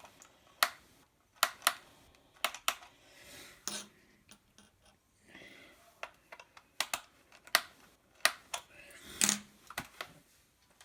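Sharp, irregular clicks and taps of a small screwdriver and screws against a laptop's plastic bottom case as the last screw is undone, about a dozen clicks spaced unevenly.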